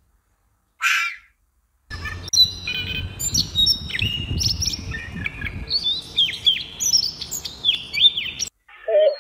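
European robin singing: a long run of varied, high, thin whistles and trills over a low rumble of wind, cutting off suddenly near the end. About a second in, before the song, comes one short hoarse animal call.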